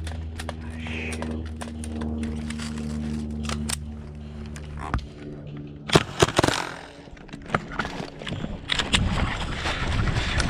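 Airsoft gunfire: a run of sharp clicking shots and pellet hits, loudest in a cluster of cracks about six seconds in. A steady low hum sounds underneath and stops about five seconds in.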